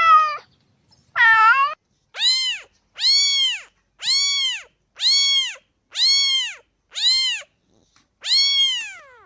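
Domestic cat meowing over and over: a short upward call, then seven near-identical meows about once a second, each rising then falling in pitch.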